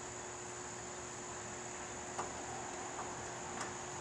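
Steady background hiss and low hum, with three faint light clicks as a T-handle Allen wrench and the seat bolt are handled.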